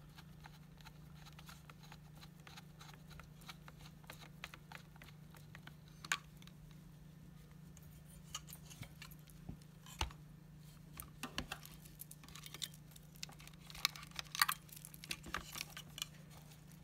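Scattered light clicks and taps from hoverboard parts being handled: a screwdriver, the plastic battery housing and wiring. A busier run of small rattling clicks comes near the end, over a faint steady low hum.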